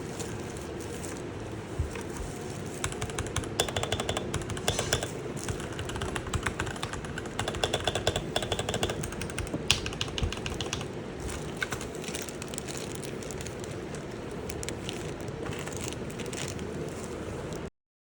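Royal Kludge G68 mechanical keyboard being typed on: keys clacking in quick, irregular runs, busiest from about three to eleven seconds in, over a steady low hum. The sound cuts off abruptly just before the end.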